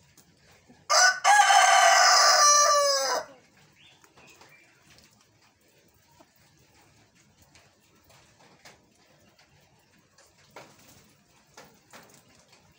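Rooster crowing once, about a second in: a short opening note, then a held crow of about two seconds that falls in pitch at the end. The crow sounds lazy, unlike a usual rooster's crow.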